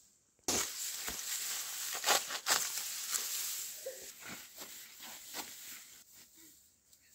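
Dry grass and undergrowth rustling and crackling close by, with a few sharper snaps; it starts suddenly about half a second in and fades toward the end.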